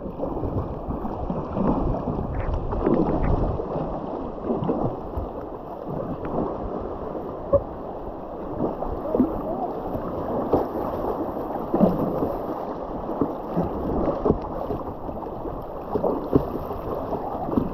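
River water rushing and splashing around a kayak running small rapids, a steady wash dotted with brief splashes and gurgles. Wind buffets the microphone.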